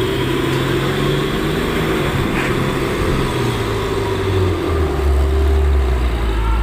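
A heavy truck's engine running with a steady low drone; about two-thirds of the way in its pitch drops and it grows louder.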